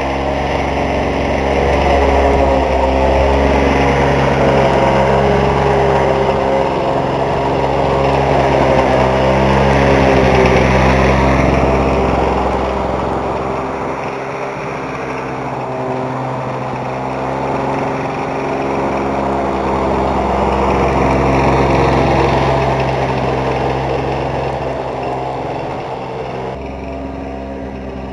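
Lawn-Boy 4 hp two-stroke lawn mower engine running steadily, its sound swelling and fading twice as it works. The owner hears a knock in it that he suspects is a rod knock.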